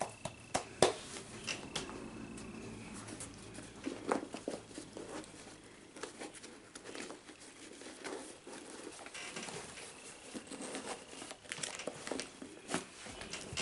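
Paper and packaging crinkling and rustling, with scattered sharp clicks, as a new pair of Adidas Dame 6 basketball shoes is handled, laced and pulled on.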